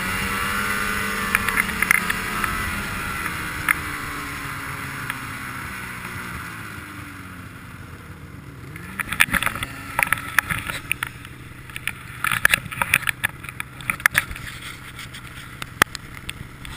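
Ski-Doo snowmobile engine running on the move, its pitch gliding and the level easing off over the first several seconds, then the note climbing again. From about nine seconds in, irregular sharp knocks and rattles break in.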